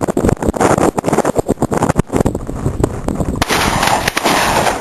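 Strong wind buffeting the microphone with a heavy, uneven rumble and thumping, and a gunshot from a rifle or shotgun fired among it. A louder rushing gust comes in about three and a half seconds in.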